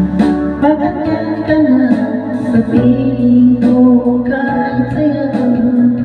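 A man singing through a handheld microphone over a backing track of bass, guitar and a beat, holding long notes.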